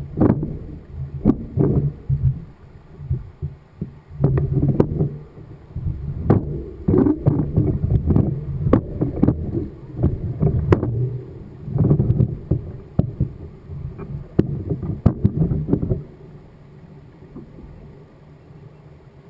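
Mountain bike riding over rough trail: irregular low rumbling and knocks, with wind buffeting the microphone, dropping to a much quieter hum about three-quarters of the way through.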